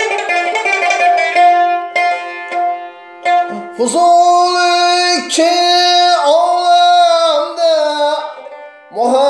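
Maqom music: a plucked string instrument plays a short instrumental phrase. About four seconds in, a long melismatic sung line with wavering ornaments enters.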